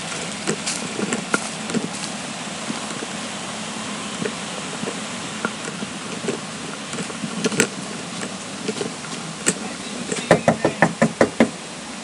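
Light footsteps and scattered ticks while walking, then near the end a quick, evenly spaced run of about seven knocks on a front door.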